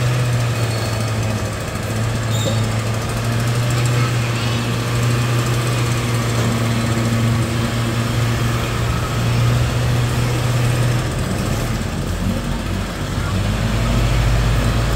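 A nearby engine running steadily with a low hum for about eleven seconds, then a deeper rumble takes over near the end.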